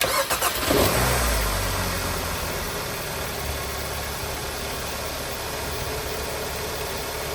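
Hyundai Sonata 2.4-litre four-cylinder engine starting on its newly replaced starter: it catches within about a second, flares up, then settles to a steady idle.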